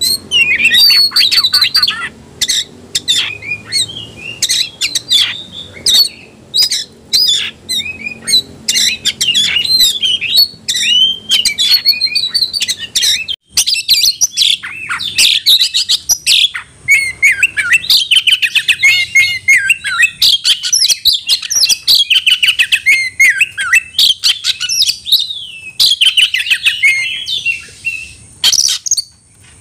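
Oriental magpie-robin (kacer) singing loudly and without pause, a rapid run of varied whistles and sharp chattering notes, in the agitated, fight-ready full song that bird keepers call gacor. The song breaks off briefly about halfway through and resumes as a more continuous warbling run.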